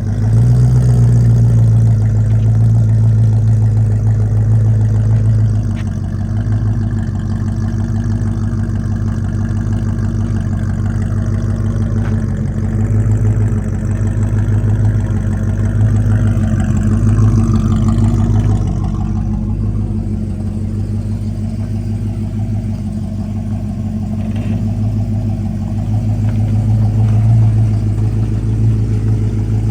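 Holden VK Commodore's 5.0-litre V8 running as the car is driven, a steady low drone whose pitch rises for a few seconds around the middle and then falls back. The engine is running right after a vacuum leak to the MAP sensor, the cause of its stalling, was found and fixed.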